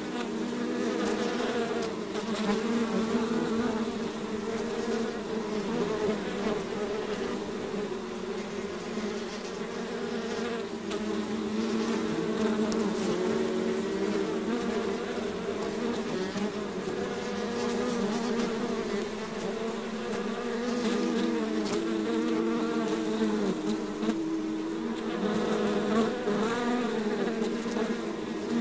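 A swarm of bees buzzing steadily: many overlapping wing hums that waver slightly in pitch, with no break.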